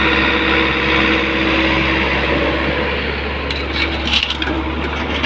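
Heavy diesel engine running steadily, with a few sharp knocks or cracks about three and a half to four and a half seconds in.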